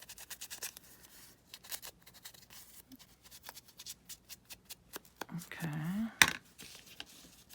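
Paper being handled on a craft table: light rustling with many small clicks and taps, and one sharp click about six seconds in.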